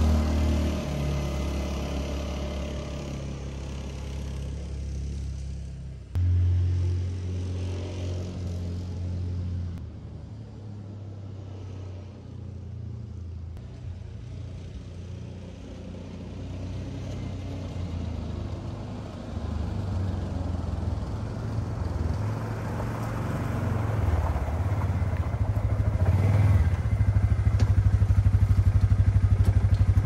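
Kymco UXV 500i side-by-side's engine running as it drives off and comes back. The hum fades, briefly swells about six seconds in, and grows to its loudest near the end as the machine pulls up close. It is running properly on a test drive after a fuel pump and in-tank fuel line repair.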